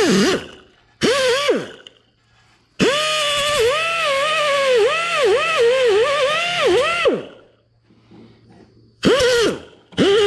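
Grinder cutting down rough welds on sheet metal, run in short bursts and one long pass in the middle, its whine dipping in pitch again and again as it bites into the metal and recovering as it eases off.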